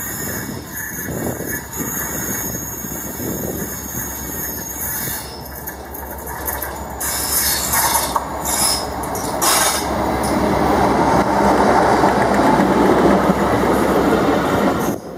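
Class 57 diesel locomotive, with its EMD two-stroke V12 running, hauling a rake of coaches past at speed. The train noise grows louder about halfway through as the locomotive and coaches go by on the rails.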